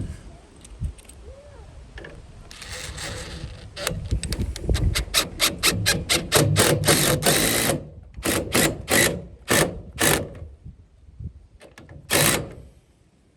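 A tool fastening the roof-mount bracket, making a run of quick mechanical clicks that speed up into a continuous stretch about 7 seconds in, then slow to single clicks about half a second apart, with one louder burst near the end. Wind rumbles on the microphone underneath.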